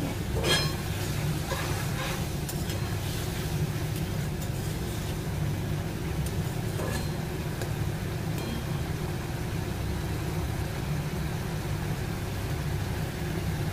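Spiced curry gravy coming to the boil in a kadai over a gas stove, under a steady low rumble, with a few light scrapes of a spatula stirring it near the start and about seven seconds in.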